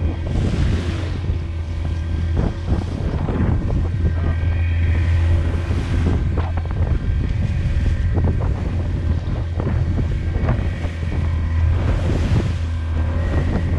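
A small open fishing boat's outboard motor running steadily under way, with wind buffeting the microphone and water splashing against the hull now and then.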